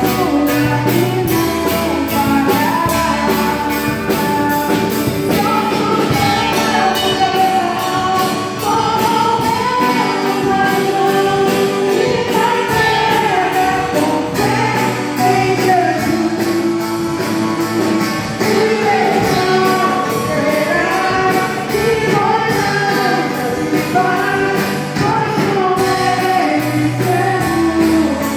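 A worship group sings a hymn together over a live band, with a steady percussion beat.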